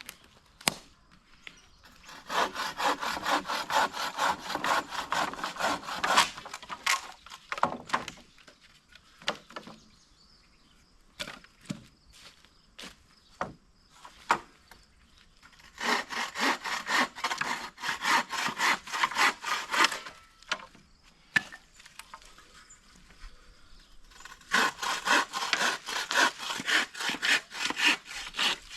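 Hand saw cutting wood in three bouts of quick back-and-forth strokes, with a few single sharp clicks and snaps between the bouts.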